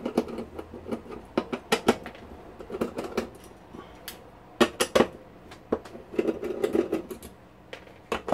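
Irregular light metallic clicks and clinks of a screwdriver, screws and the metal chassis of an HP 5328A frequency counter being handled during disassembly, with a louder cluster of clicks about halfway through.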